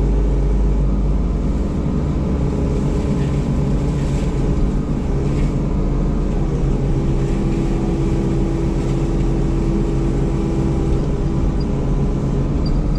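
Engine running at a steady speed: a loud, even drone with a low hum that does not rise or fall.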